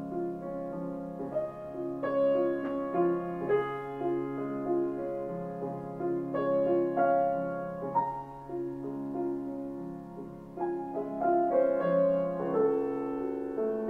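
Steinway Model B grand piano played live by hand: sustained chords under a melody line, each note struck cleanly and left to ring. The playing softens a little past the middle and grows fuller near the end.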